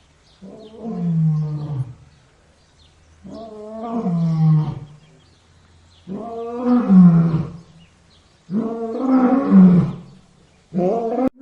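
Lion roaring: four long roars a second or so apart, each sliding down in pitch. A fifth roar starts near the end and is cut off abruptly.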